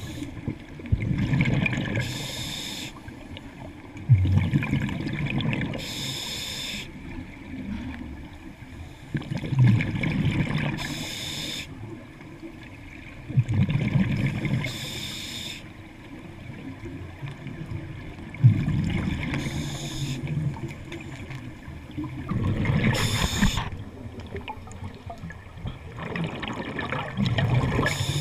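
Scuba diver breathing through a regulator underwater: a hiss with each inhale about every four to five seconds, alternating with the low bubbling of exhaled air.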